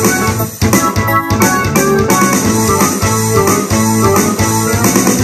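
Ensoniq SD-1 synthesizer keyboard played with both hands in an electric-piano tone: chords over a bass line, with a steady rhythm.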